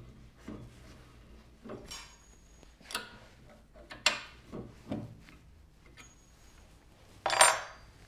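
Scattered knocks and clinks of a 6-inch lathe faceplate carrying a laminated banjo rim blank being handled and fitted onto the lathe head, a few with a brief metallic ring, and a louder clatter near the end.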